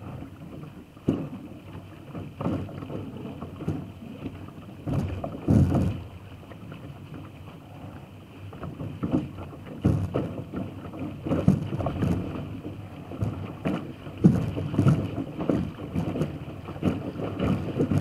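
Water rushing and splashing against the hull of a small sailing dinghy moving fast, heard close to the bow, with irregular louder surges as it meets waves.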